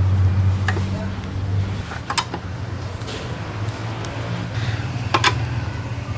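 A few sharp metal clicks from a nut driver seating on and turning out the 10 mm bolts of a motorcycle fuel-tank cover, the last two close together, over a steady low hum.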